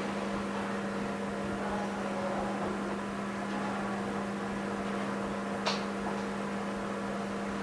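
Steady electrical hum over a light hiss, with one brief click a little before six seconds in.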